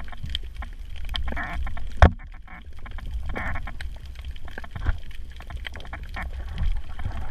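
Underwater sound picked up by a camera in its housing on a coral reef: a low steady rumble with many small clicks and crackles, a few short raspy bursts, and one sharp knock about two seconds in.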